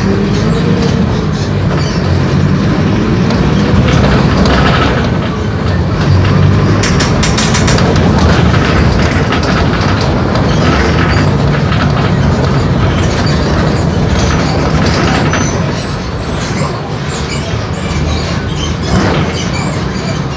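Mercedes-Benz OF-1418 bus with a Marcopolo Torino body, its six-cylinder diesel engine droning steadily with a lot of body rattle. A brief rising pitch at the start as the engine picks up speed.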